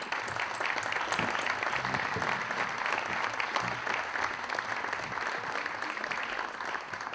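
Audience applauding in many-handed, steady clapping that dies away at the end.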